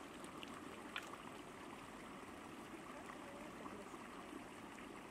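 Shallow stream trickling over stones: a faint, steady water rush, with one sharp tick about a second in.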